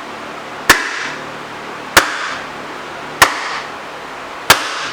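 Four hard hammer blows, about one every second and a quarter, each with a short ring, striking the rusted-in tailstock of a Monarch 10EE lathe to drive it loose along the ways.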